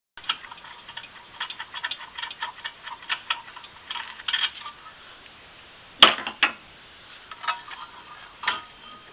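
Metal hand tools clicking and clinking rapidly and irregularly against the brake hardware during front brake work, then one loud sharp metal clank about six seconds in, followed by a few lighter knocks.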